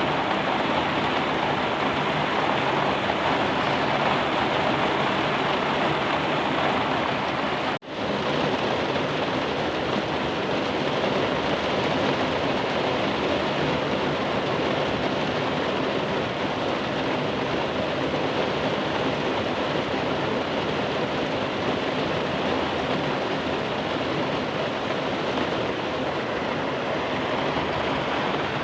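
Steady rain falling, an even dense hiss, with a brief break in the sound about eight seconds in.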